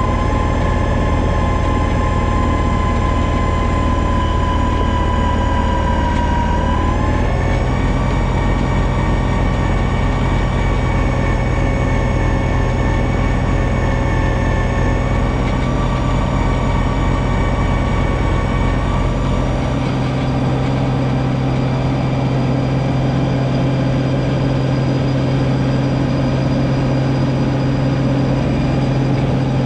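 John Deere 2032R compact tractor's three-cylinder diesel running under load while its 60-inch front snowblower throws snow. A steady mechanical whine rides over the engine and dips slightly in pitch about six seconds in. The low rumble lightens about twenty seconds in.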